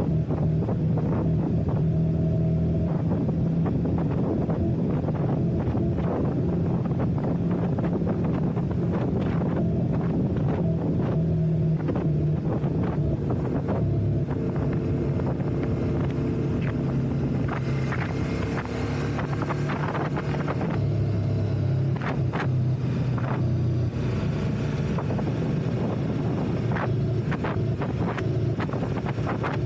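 Ducati motorcycle engine running under way, its pitch stepping up and down several times as the rider shifts and changes speed, with wind buffeting the microphone.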